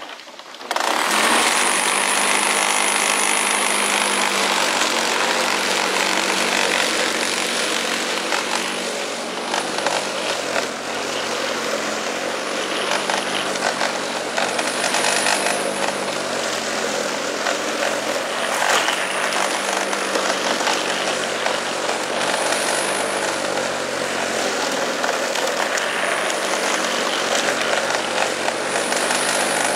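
Corded electric lawn mower switching on about a second in, then running steadily as it cuts grass, with small dips in pitch now and then.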